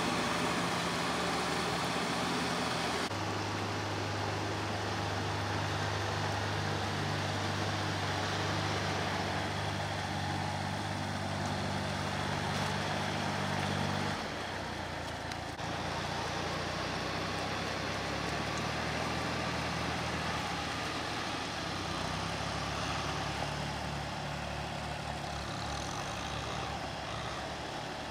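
Small farm tractor engines running steadily. The engine note changes abruptly about three seconds in and again about fourteen seconds in.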